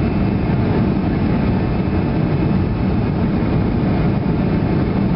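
Boeing 737 jet engines and airflow heard inside the passenger cabin during the landing approach: a loud, steady low rumble with no change.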